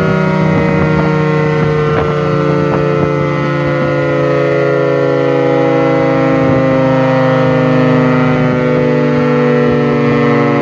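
Secomak GP8 siren sounding at speed, a loud, steady tone that holds its pitch.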